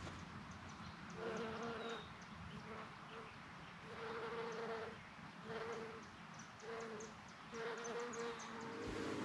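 A bumble bee buzzing in flight, in on-off bouts of about a second each, starting about a second in.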